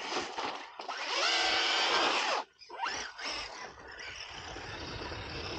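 Kyosho Scorpion B-XXL RC buggy's brushless motor whining under throttle, its pitch rising about a second in and cutting off sharply around two and a half seconds, followed by a couple of shorter, quieter throttle blips.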